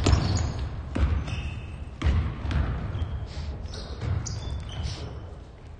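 Basketball bouncing on a gym floor, one bounce roughly every second, at an uneven pace.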